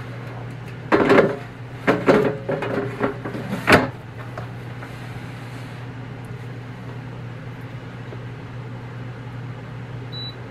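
CruxGG Trizone air fryer's plastic basket drawer clattering as it is slid back into the fryer, a few knocks and scrapes ending in a sharp click as it seats, over a steady low hum. Near the end a short high beep as its touch control panel is pressed.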